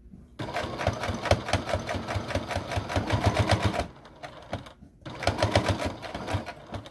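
Electric sewing machine stitching a seam through fabric, in two runs: about three and a half seconds of fast, even needle strokes, a pause of about a second, then about two seconds more.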